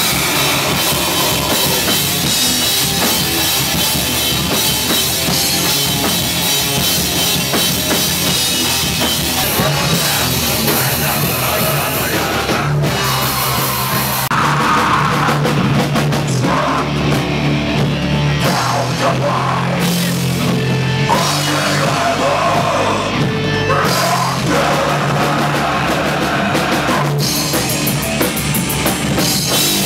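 Live rock band playing loud: electric guitars, bass guitar and a full drum kit.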